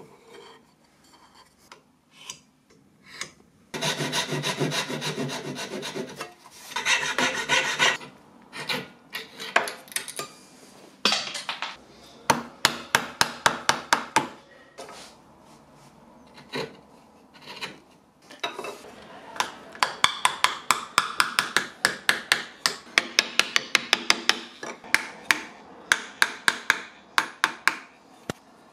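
Hand woodworking tools, chisel and plane, working hardwood to cut dovetail joints. About four seconds in come two long rasping passes, then runs of short, sharp scraping strokes at about three a second.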